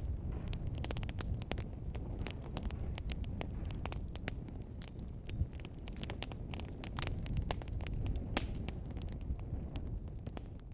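Wood fire crackling in a fireplace: frequent irregular sharp pops and snaps over a steady low rumble of burning.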